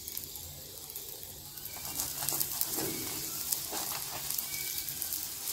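Ghee sizzling steadily on a hot tawa under a frying mooli paratha, with a few soft scrapes of a steel spoon spreading ghee over the paratha a couple of seconds in.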